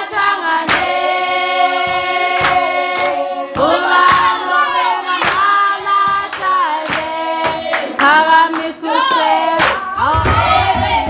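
A group of women singing together, with sharp hand claps keeping a beat roughly once a second. A low rumble comes in near the end.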